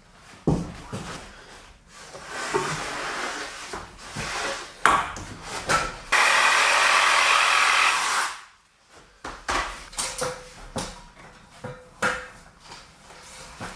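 Wooden knocks and scraping as roof boards are handled, then a power tool motor runs loudly for about two seconds and cuts off, followed by more knocks.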